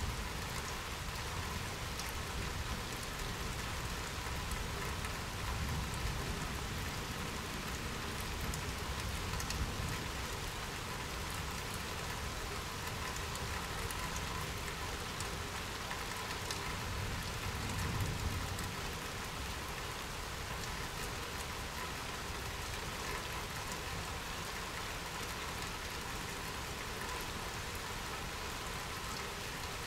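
Steady rain falling, an even hiss of many drops on surfaces. A low rumble swells briefly about two-thirds of the way through.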